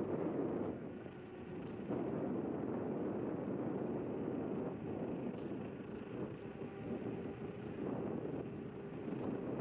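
Wind buffeting the microphone and tyre rumble from a Zero 10x electric scooter riding along a concrete path. A few light clicks come through the steady rush, and a faint steady hum joins in about halfway through.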